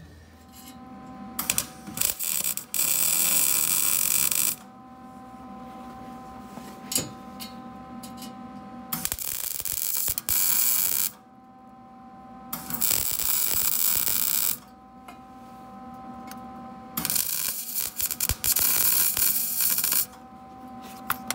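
Wire-feed (MIG) welder arc crackling and hissing in four bursts of a couple of seconds each, laying tack welds on a car's exhaust pipe and clamp. A steady hum fills the gaps between the bursts.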